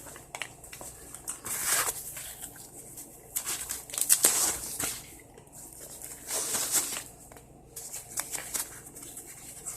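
Rustling and crinkling of a handbag and its paper packing being handled, in several irregular bursts, the loudest about four seconds in.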